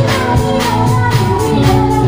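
Live band music through a PA system: keyboards, electric guitar and drums playing a steady beat, with a singing voice over them.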